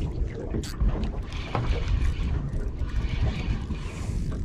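Wind rumbling on the microphone and choppy water against a small boat's hull, with a few light clicks from a spinning reel as a hooked snapper is wound in.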